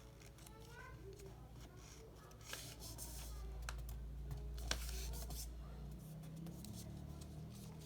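Sheet of origami paper being handled and folded: soft rustling and a series of short crisp creasing clicks, over a steady low hum.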